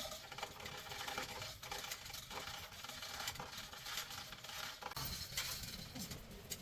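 Scattered light clicks and scraping, the sound of small hard parts or tools being handled, with a slightly louder hiss near the end.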